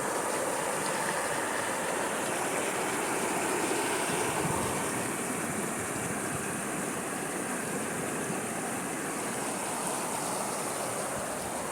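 A river running: a steady rush of flowing water.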